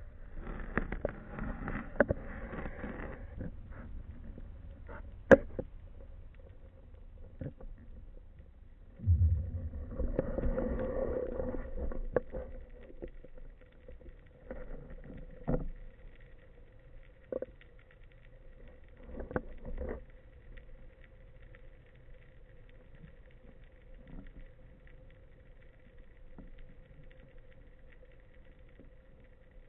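Underwater sound picked up by a speargun-mounted action camera in its waterproof housing: two spells of water rushing past with low thumps as the diver moves, scattered sharp knocks and clicks against the housing, and a faint steady hum through the second half.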